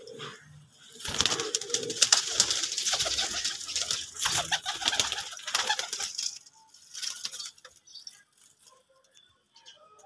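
Domestic pigeons cooing, with a loud flurry of wing flapping from about a second in that lasts some five seconds, then softer cooing.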